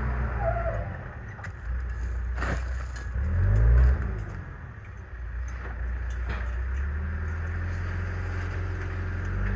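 Heavy machinery engine running steadily, revving up briefly about three and a half seconds in and then settling, with several sharp knocks and scrapes.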